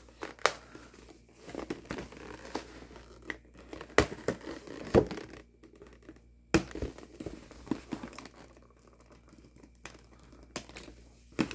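Action-figure packaging being handled: cardboard and plastic crinkling and rustling while the ties holding the figure to its backing are snipped and pulled free. Scattered sharp clicks and snaps, the loudest about four, five and six and a half seconds in.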